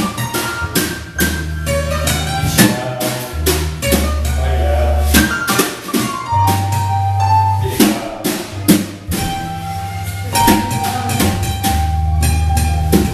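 Live band music: a drum kit keeping a steady beat over long held bass notes, with some sustained higher melody notes.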